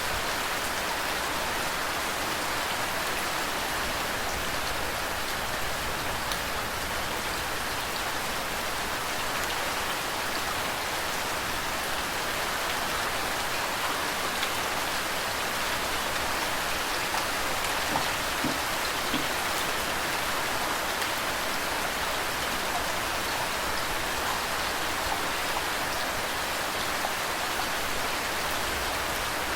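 Steady rain falling, an even hiss with small ticks of individual drops scattered through it.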